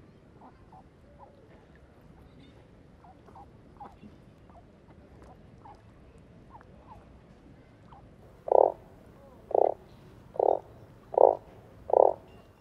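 Pond ambience with faint scattered chirps over a low hiss, then a frog croaking loudly five times, about once a second, from about two-thirds of the way in.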